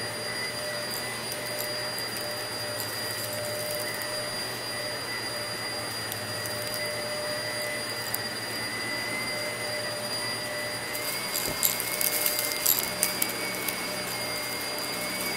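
Shark Navigator upright vacuum running steadily with a high whine, its brushroll on rug and carpet. About two-thirds of the way through, the whine steps up slightly in pitch and a run of sharp crackling clicks follows as the brushroll crunches on debris.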